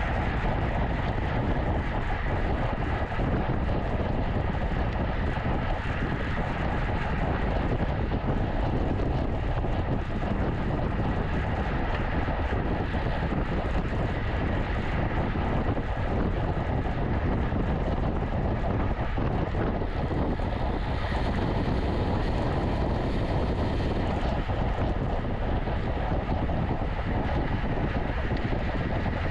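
Steady wind rush and rolling road noise of a road bicycle at racing speed, with wind buffeting the microphone.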